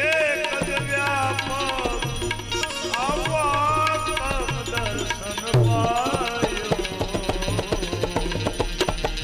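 Devotional bhajan music: tabla playing a steady rhythm with deep bass-drum strokes, under a melody that slides up and down in pitch.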